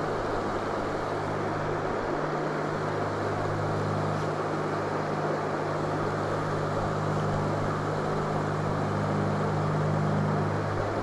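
Steady rush of river water running over rocky shoals, with a steady low hum underneath.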